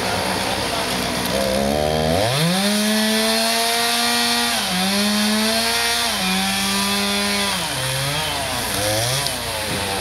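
Two-stroke chainsaw revving up about two seconds in and running at full throttle as it cuts into the base of a dead pine trunk, its pitch dropping in steps under load. Near the end it throttles down and revs briefly twice.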